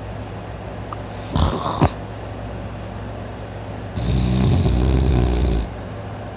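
A person snoring in deep sleep: a short breath noise with a click about a second and a half in, then one loud snore lasting nearly two seconds, starting about four seconds in.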